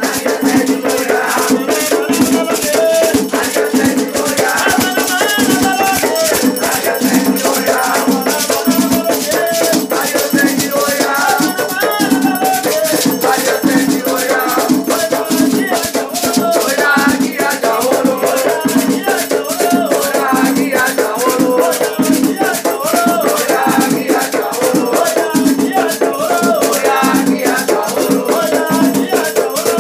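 Afro-Brazilian batuque ritual music: a fast, steady rhythm of drum and gourd shaker (agê), with voices singing over it.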